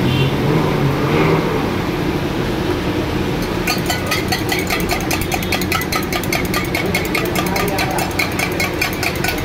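Steel spoon beating eggs in a steel cup: rapid, even clinking of metal on metal that starts about four seconds in, over a steady low rumble.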